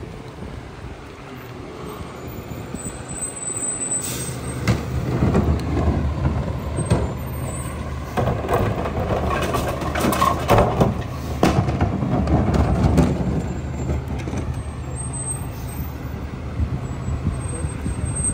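Freightliner M2 garbage truck's diesel engine running, with a short hiss from the air brakes about four seconds in. Then recyclables clatter and knock into the McNeilus rear loader's hopper as a recycling cart is tipped and banged out.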